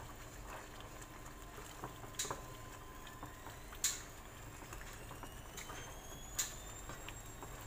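Chili paste frying in oil in a wok, bubbling softly as it is stirred with a wooden spatula, with three sharp clicks spread through.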